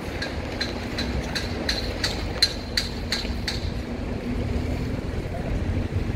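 Outdoor street ambience with wind buffeting the microphone and a steady low hum. In the first half a run of about ten sharp, ringing ticks comes at roughly three a second, then stops.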